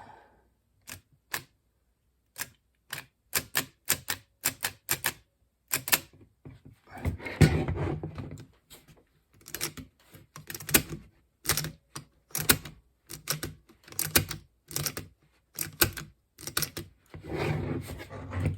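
Floppy drive mechanism being worked by hand to test its sticking eject after old grease has been cleaned off. It gives a run of sharp, irregular mechanical clicks, with two longer clattering clunks, one about seven seconds in and one near the end.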